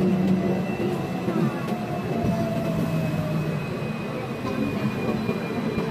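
Hong Kong double-decker tram running along its street tracks: a steady rumble and rattle of the car, with a faint, steady high whine.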